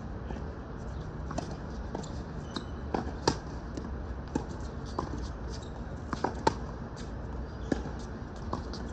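Tennis balls being struck by racquets and bouncing on an outdoor hard court: a scattering of sharp knocks, the loudest about a third of the way in and again past the middle, over a steady low background rumble.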